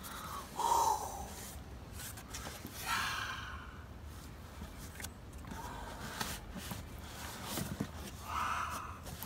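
Cardboard shipping box being opened by hand: flaps pushed back and the boxed play button inside handled, with a few soft scrapes and rustles and small handling clicks.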